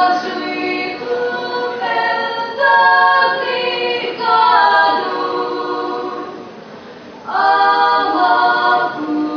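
Female vocal quartet singing unaccompanied in harmony, sustained notes in several parts. The singing softens about five and a half seconds in and the next phrase comes in strongly a second or two later.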